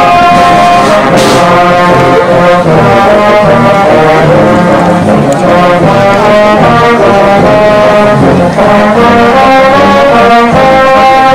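Brass music: horns playing a melody of held notes, loud and continuous.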